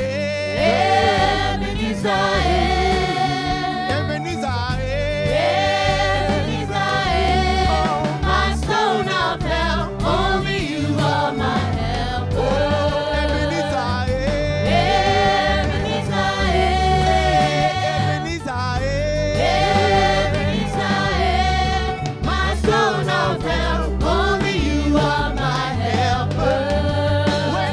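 Gospel praise song sung live by a group of women singers on microphones, with held notes in the melody, over instrumental backing with steady low bass notes.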